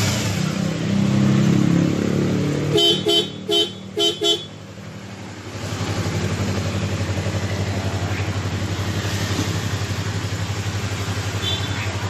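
Yamaha MT-25's parallel-twin engine running with some revving, then its aftermarket horn gives about five short toots about three seconds in, after which the engine settles to a steady idle.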